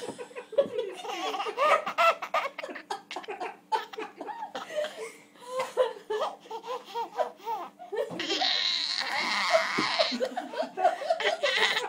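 A baby laughing in repeated short bursts of giggles, with a louder, breathier stretch of laughter about eight to ten seconds in.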